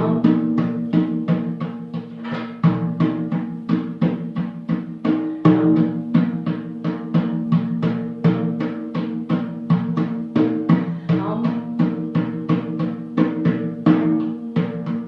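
Percussion music: a steady rhythm of pitched drum strikes, about three a second, each ringing on in a low tone.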